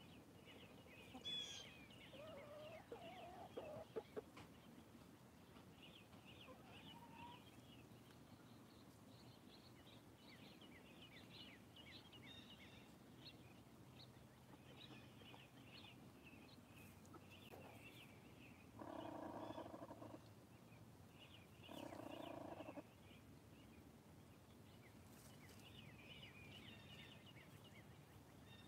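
Backyard hens vocalising faintly as they forage, against a continual scatter of short high chirps. The loudest sounds are two drawn-out hen calls of about a second each, some three seconds apart, about two-thirds of the way through.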